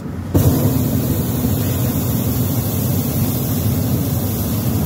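Hot air balloon's propane burner firing overhead: a loud, steady rushing noise that starts suddenly just after the beginning and holds.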